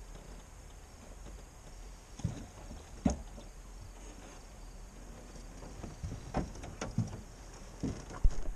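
Scattered knocks and bumps of gear being handled in a fishing boat, over a steady low background. The loudest come in a quick cluster near the end, as a hand grabs at the camera.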